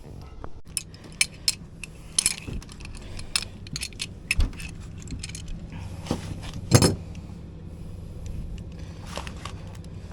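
Metal hand tools clinking and jangling as they are handled, over a steady low hum.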